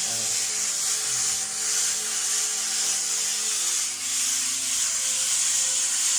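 Chimney swift nestlings in a chimney giving a loud, raspy hissing chatter that swells and eases in repeated waves.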